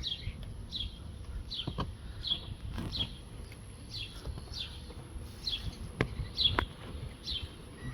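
A bird repeating a short, high chirp that falls in pitch, about twice a second. A few sharp clicks and a low background rumble are also heard.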